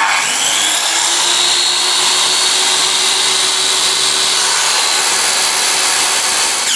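Hitachi C7BA 185 mm circular saw running with no load: the motor starts suddenly, its whine rises briefly as the blade spins up and then holds steady, and it is switched off right at the end, the pitch starting to fall as it winds down.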